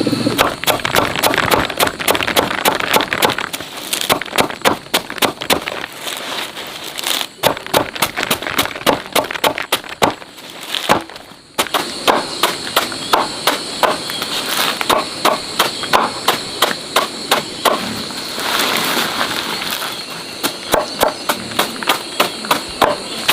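Quick repeated knocks, about two to three a second in runs, with a short break about eleven seconds in, over a faint steady high whine.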